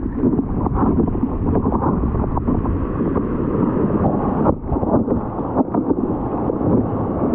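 Ocean water sloshing and splashing around a small action camera mounted on the nose of a board floating in the surf, with wind on the microphone. The sound is muffled and continuous, broken by many small splashes, with a brief drop about four and a half seconds in.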